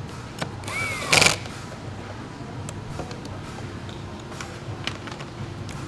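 Hand-tool and parts-handling noises: a brief loud rasping squeal about a second in, then light clicks and taps.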